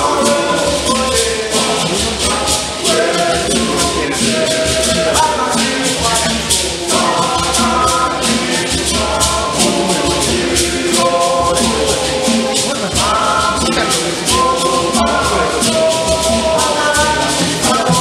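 Men's choir singing a hymn in several-part harmony, accompanied by hosho gourd rattles shaken in a fast, steady rhythm and a low drum beat.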